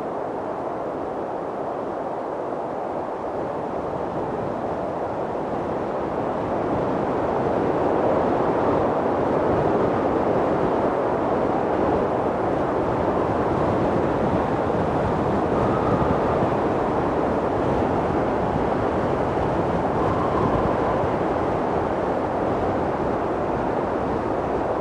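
Strong mountain wind blowing steadily, a low rushing noise that swells a little louder about a quarter of the way in and then holds.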